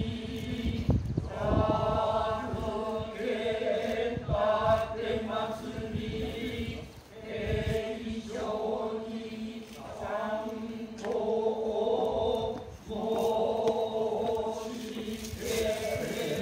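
Noh chanting (utai): a low voice in long, drawn-out wavering notes with short breaks between phrases. Low thumps come now and then.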